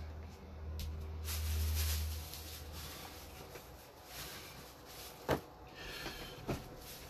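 Objects being handled and set down on a tabletop: a low rumble that stops a little over two seconds in, then two sharp knocks about a second apart.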